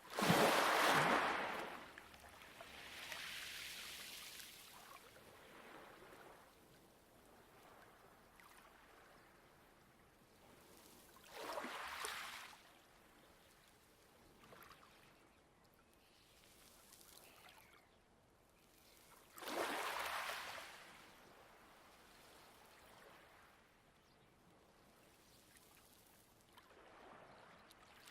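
Light waves washing onto a pebble beach: a soft steady hiss broken by a rush of water and pebbles with each wave, each rush swelling quickly and fading over a second or two. There are about five, irregularly spaced; the first is the loudest.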